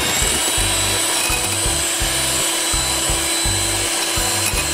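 Electric hand mixer running steadily at low speed, its wire beaters whipping egg whites in a glass bowl, with a steady motor whine. This is the low-speed finishing beat once the meringue has reached soft peaks.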